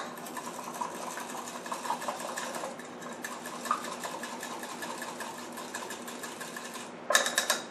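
Metal utensil whisking a butter-and-sauce mixture in a glass measuring cup: a fast, steady rattle of metal against glass, with a louder clatter near the end.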